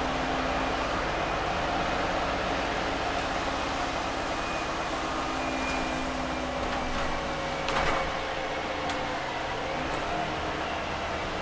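Iveco Urbanway 12M city bus heard from inside the passenger cabin while under way: steady engine and drivetrain hum with road noise. A short sharp knock sounds about eight seconds in, with a few fainter ticks around it.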